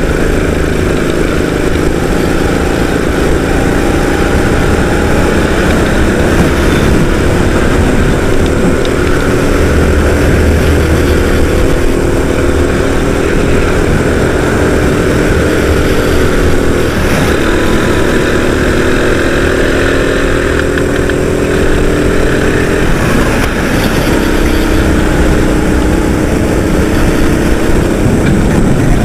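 Racing kart engine heard from on board, running hard, its pitch rising and falling as the kart speeds up on the straights and slows for the corners.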